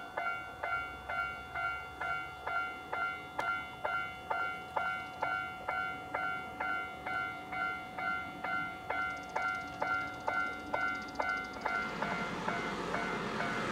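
Railway level-crossing warning bell ringing in an even clang, about two strikes a second. Near the end, the noise of an approaching train builds under it.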